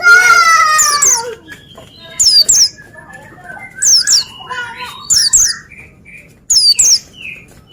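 White-eyes (pleci) singing: repeated short, sharp, very high notes that slide downward, coming about every second, over softer chattering. A louder harsh call falls in pitch right at the start.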